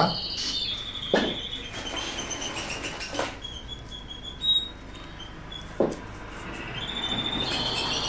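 Canary singing in the background: trilling phrases of high, rapidly repeated notes. A few short knocks from the wooden nest box being handled, about a second, three seconds and six seconds in.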